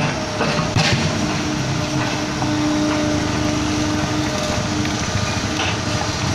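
Kobelco SK75 excavator's diesel engine running under digging load, with a steady hydraulic whine as the arm and bucket work the trench. A couple of brief knocks sound, about a second in and near the end.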